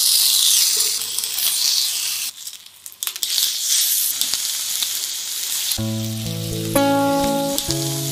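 Pork belly slices sizzling on a hot ribbed electric grill plate, a steady frying hiss that dips briefly about two and a half seconds in. From about six seconds in, plucked-string music comes in over the quieter sizzling.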